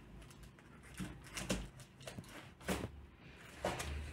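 Cardboard box in clear plastic wrap being handled: soft rustling, with a few small taps and scrapes at irregular moments.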